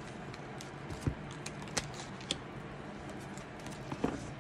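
A deck of oracle cards being handled and drawn from: a few short taps and snaps of card stock, over a steady low hum.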